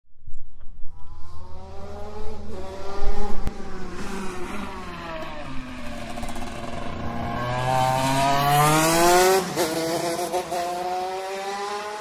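A racing engine revving, its pitch sliding down over the first few seconds, then climbing to a peak about nine seconds in, dipping briefly and climbing again.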